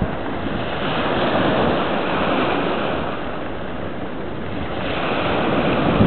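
Sea surf breaking and washing over a pebble shore: a continuous rushing that swells as each wave comes in.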